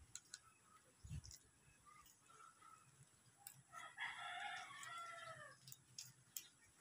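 A rooster crowing once, faintly, a single call of nearly two seconds starting about four seconds in that drops in pitch at its end. Light clicks and taps come from hands working on an air rifle's action.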